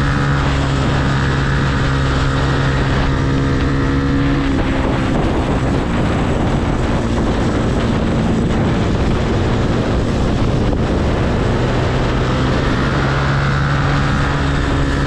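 Yamaha R15 single-cylinder engine running steadily under way, heard over wind and road noise. The engine note fades into the wind about a third of the way in and comes back near the end.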